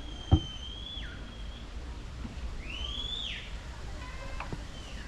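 Two high whistled notes: a long, nearly level one that drops at its end, then a shorter one that rises and falls, with a single sharp knock about a third of a second in.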